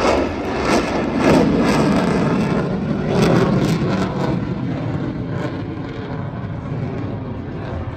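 F-22 Raptor fighter jet flying past, its twin turbofan engines loud with a crackling edge in the first half, then fading gradually.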